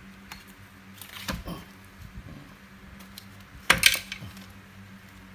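Metal knocks and light rattles from a small Kawasaki two-stroke engine being handled and moved by hand: a knock about a second in and a louder double clunk a little past halfway, with a few small clicks.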